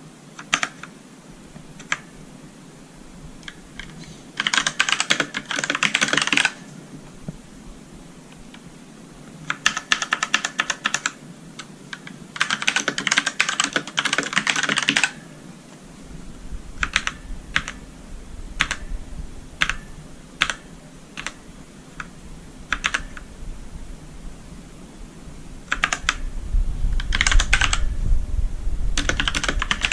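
Mechanical keyboard with Outemu Black linear switches being typed on: several runs of rapid keystrokes, with single key presses spaced out in between.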